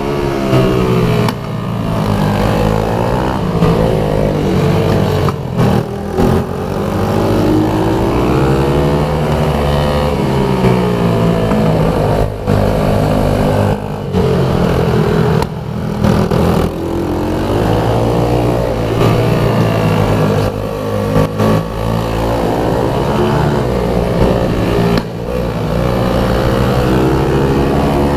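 Pit bike engine revving hard under riding load, its pitch climbing and falling back again and again. It drops off briefly every few seconds as the throttle is shut or a gear is changed.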